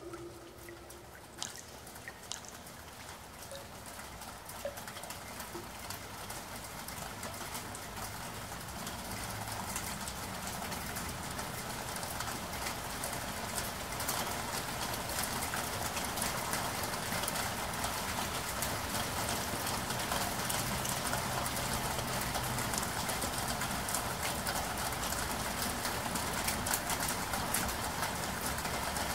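Steady rain falling on hard surfaces, dense with small drop impacts, swelling gradually over the first dozen or so seconds and then holding steady. A few separate water drips sound in the first few seconds.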